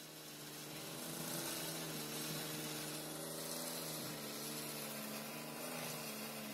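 Cordless drill motor running steadily, spinning a wooden stick so that twine winds onto it; a steady pitched hum that swells up over the first second.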